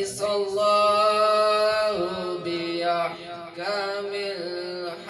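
A man reciting the Quran in a melodic style through a microphone and loudspeaker, holding long notes that waver and slide between pitches.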